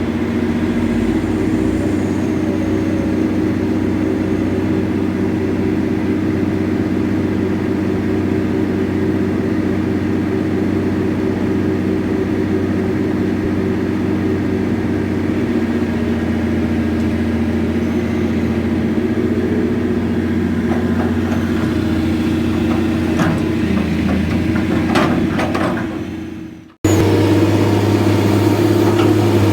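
An engine running steadily at an even speed. About 26 seconds in it fades out and cuts to a louder, steady engine sound with a deeper hum.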